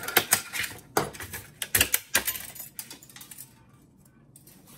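Plastic and aluminium laptop case parts clattering as an internal plastic frame is worked loose from a MacBook Pro's aluminium bottom case: a quick run of sharp clicks and rattles in the first couple of seconds, then only a few faint knocks.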